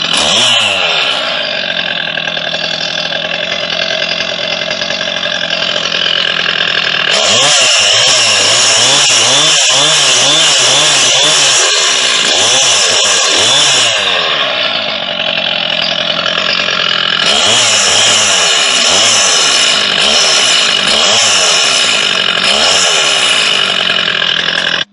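Chainsaw cutting an angled notch into a thick wooden beam, running without a break, its engine pitch rising and falling with the throttle. It goes up to a higher, harder revving cut from about seven to fourteen seconds in and again from about seventeen seconds, then cuts off abruptly at the end.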